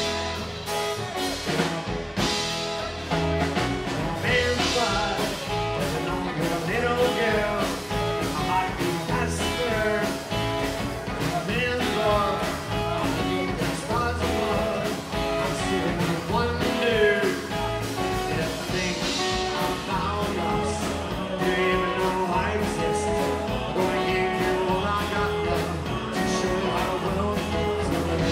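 Live rockabilly band: a man singing over strummed acoustic guitar, electric guitar and drums keeping a steady beat.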